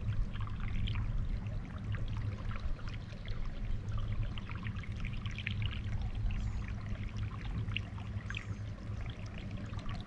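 Water gurgling and trickling along the hull of a kayak moving through calm river water, over a steady low rumble.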